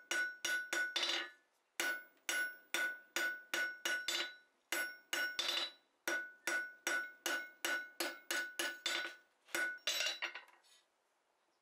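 Hand hammer striking a hot steel bar on the anvil face, about two blows a second in runs with short pauses, each blow with a ringing anvil tone. It is the finishing stage of drawing down a hook, dressing its edges and corners smooth; the blows stop about a second before the end.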